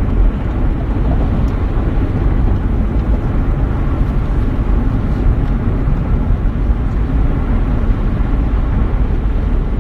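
Steady, loud low rumble of background noise, with no distinct events.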